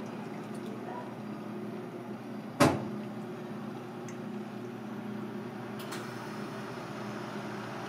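Steady kitchen background hum, with a single sharp knock about two and a half seconds in and a faint click near the end.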